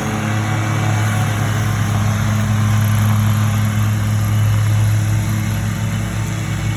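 Small gas-powered lawn equipment engines running steadily at high speed: a loud, even low hum, with a second higher tone that drops out about four seconds in.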